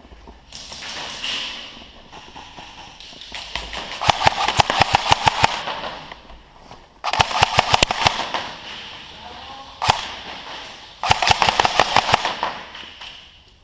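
Airsoft guns firing on full auto: several rapid bursts of sharp clicking shots, each about a second and a half long.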